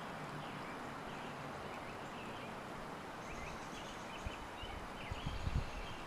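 Outdoor ambience: a steady hiss with faint, scattered bird chirps. From about four seconds in come irregular low rumbles.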